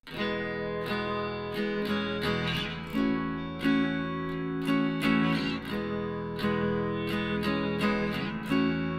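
Background music of a strummed acoustic guitar, starting abruptly at the outset and going on with a steady strumming rhythm.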